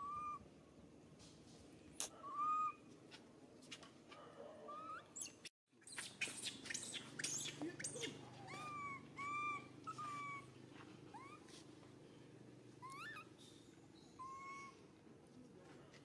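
Baby macaque crying: short, high, repeated coo-like whimpers, a dozen or so spread through, with a few sharp clicks between them.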